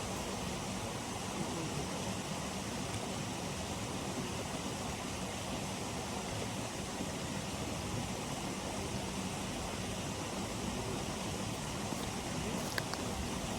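Steady, even rushing noise with no rhythm or pitch, with a couple of faint clicks near the end.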